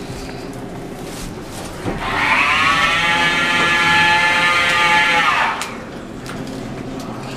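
Hotel elevator running: a whine from its drive rises in pitch as the car starts moving about two seconds in, holds steady for a few seconds, then falls away as the car slows and stops, over a steady low hum.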